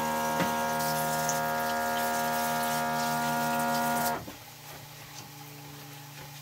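Kitchen sink tap running as hands are rinsed under it, with a steady hum of several held tones that cuts off when the tap is shut about four seconds in.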